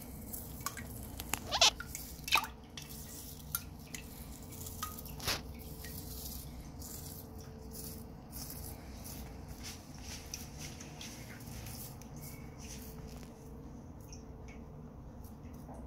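Water dripping: a few separate drops in the first half, the loudest about a second and a half in, over a steady low hum.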